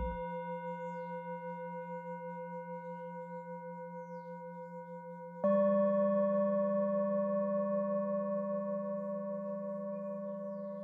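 Meditative background music: a held, ringing, bell-like tone that wavers slowly and fades. About five and a half seconds in, a louder second tone comes in on top, and it too slowly fades.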